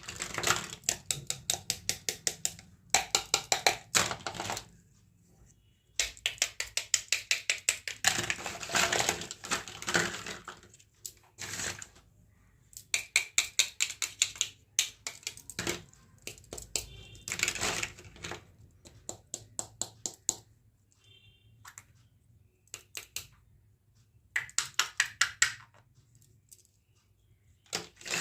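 Small plastic toy kitchen pieces being handled, giving bursts of rapid clicking and tapping, many clicks a second, broken by short pauses.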